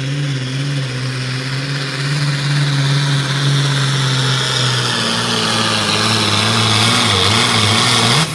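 Turbocharged International farm tractor's diesel engine running at full throttle under heavy load while pulling a weight-transfer sled, with a loud hiss over it that builds as the pull goes on. The engine note dips slightly about five seconds in and wavers near the end, then cuts off abruptly.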